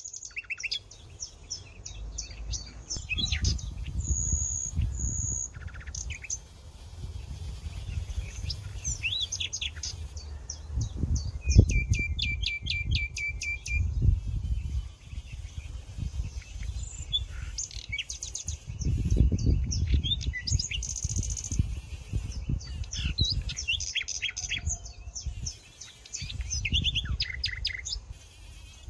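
Several songbirds chirping and singing on and off, with a fast, even trill about eleven seconds in. Under them runs a low rumble that swells and fades.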